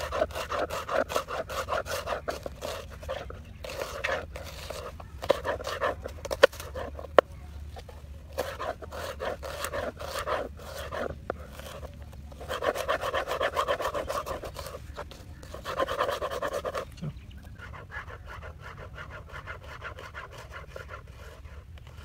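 Large knife chopping a red onion on a plastic cutting board: quick runs of knife strokes against the board, with a couple of sharper knocks about six and seven seconds in.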